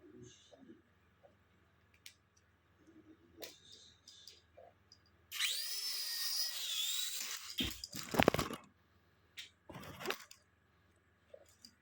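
The small electric motor and propeller of a toy flying ball whir with a high, wavering whine for about two seconds, starting about halfway in. Several loud knocks and thumps follow.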